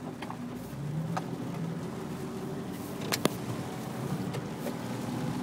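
Jeep Wrangler LJ Rubicon's 4.0-litre inline-six running steadily as the Jeep drives on along the trail, with a few short knocks, the sharpest about three seconds in.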